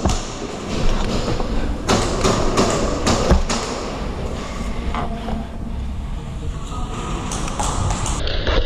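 Steady rumble with irregular knocks and clatter from an airsoft player on the move, his footsteps and gear picked up by a helmet-mounted camera. The sound changes abruptly near the end.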